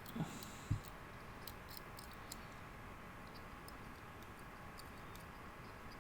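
Two soft knocks about a second apart, then faint scattered clicks over a low steady hum.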